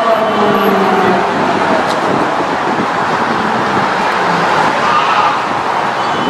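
Steady wash of city road traffic, many car engines and tyres blended together, with a faint rising engine tone about five seconds in.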